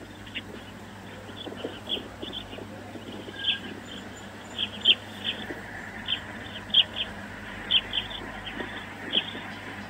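A small songbird chirping over and over: short, high chirps at irregular gaps, roughly one or two a second, over a steady background hiss.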